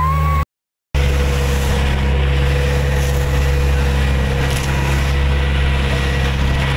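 An engine running steadily with a loud, even low drone, broken by a moment of silence about half a second in.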